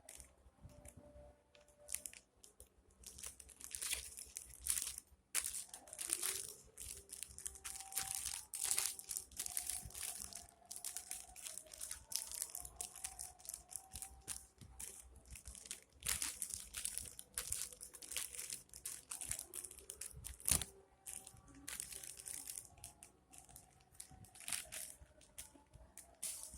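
Crinkly plastic wrapping rustling and crinkling in irregular bursts as squishy toys are handled.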